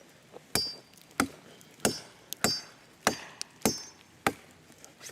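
Axe blows chopping into wood at a steady pace, about seven strikes spaced a little over half a second apart, some with a short high metallic ring.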